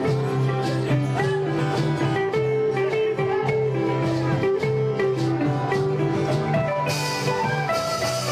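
Live acoustic band music led by strummed and plucked guitar, with a sustained melody line over a steady rhythm.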